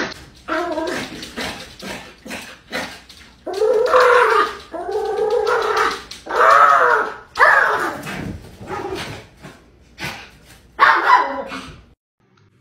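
A small fluffy dog giving a string of whining cries mixed with short barks, each call rising and falling in pitch, some brief and some held close to a second. The calls stop abruptly near the end.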